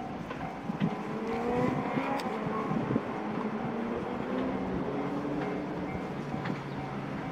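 A 381 series electric train running by: a steady rumble with a hum of several held pitches.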